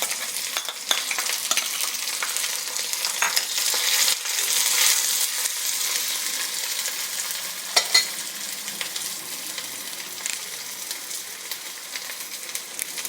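Sliced shallots sizzling in hot coconut oil in a kadai during a tempering with mustard seeds and dried red chillies, stirred as they fry. Scattered clicks run through the sizzle, with two sharp, louder clicks about eight seconds in.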